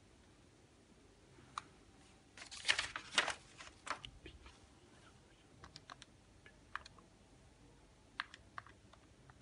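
Sheets of paper handled and shuffled for a second or two, the loudest sound, followed by a scatter of single clicks from the keys of a Casio scientific calculator being pressed.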